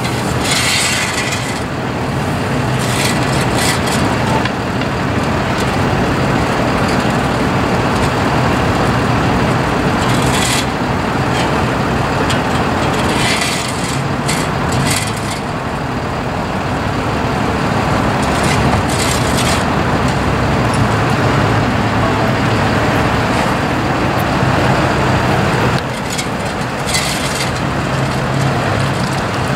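Flatbed tow truck's engine idling steadily, a continuous low hum, with road traffic passing and a few brief higher-pitched noises now and then.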